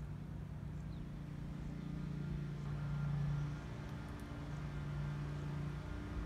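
A motor vehicle's engine running nearby: a low, steady hum that grows louder about three seconds in, dips, and swells again near the end.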